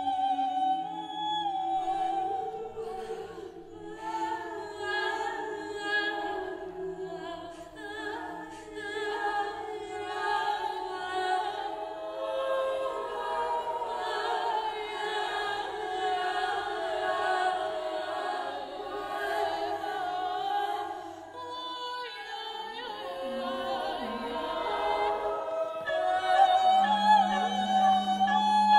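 A choir and a female soloist singing many overlapping held tones whose pitches waver and slide against one another. About three-quarters of the way through the voices thin out and one slides downward, then the layered singing swells back in with a steady low note held underneath near the end.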